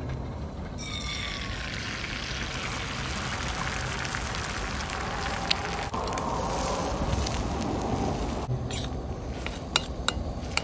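Beaten egg sizzling in a hot metal frying pan: a steady sizzle that starts about a second in as the egg hits the oil, then sharp clicks and scrapes of a spoon against the pan near the end as the eggs are scrambled.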